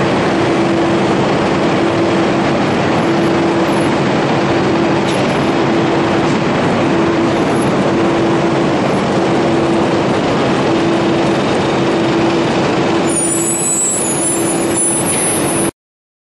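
DAF 95 XF truck's straight-six diesel running as it pulls a loaded bulk cement tanker trailer away, a loud steady rushing noise with a hum that keeps breaking off and coming back. The sound cuts off suddenly just before the end.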